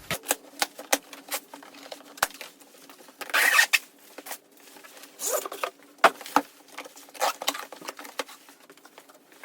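Cardboard box and packaging being opened and handled by hand: a run of light clicks and taps, with two louder bursts of rustling or tearing about three seconds and five seconds in.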